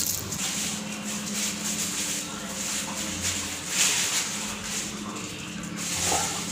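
Plastic bag rustling and crinkling as it is handled, in uneven waves, over a steady low hum.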